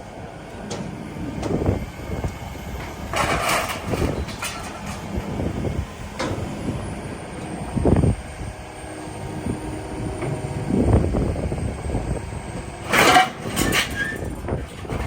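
Heavy yard machinery running with a low rumble while scrap and junk scrape and clatter off a truck bed, with several loud bangs and grinding scrapes about 3, 8, 11 and 13 seconds in.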